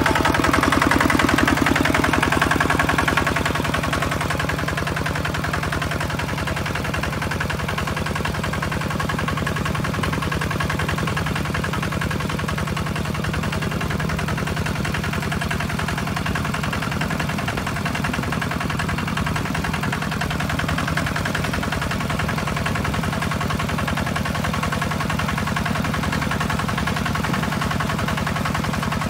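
A Kubota two-wheel walking tractor's single-cylinder diesel engine runs under load with a fast, even putter as it drives its cage wheels through paddy mud. It is a little louder for the first few seconds, then holds steady.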